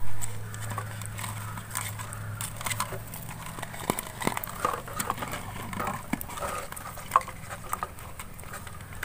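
Irregular clicks and crinkles of a plastic soda bottle being handled while a thin plastic strip is pulled and knotted around its neck, over a steady low hum.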